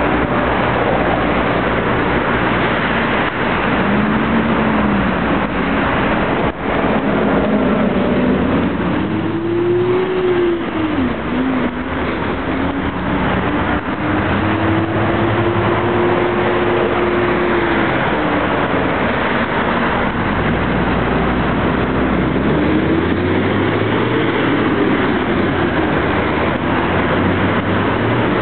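Street traffic: passing cars and other vehicles, their engines rising and falling in pitch several times over steady road noise.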